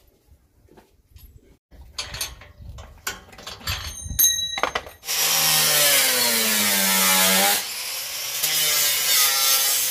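Clicks and a ringing metallic clink from a key working a rim lock on a steel gate. About five seconds in, an angle grinder starts and grinds the gate's steel plate, its motor whine dipping and rising in pitch.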